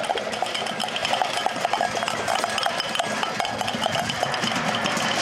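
Busy outdoor bustle from a procession of children's bicycles and pedal go-karts: a dense clatter of many small clicks and rattles over a steady noisy bed.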